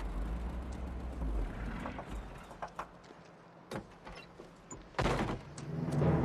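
A truck's engine with a low rumble that fades out about a second and a half in, followed by scattered clicks and knocks and a short loud clatter about five seconds in.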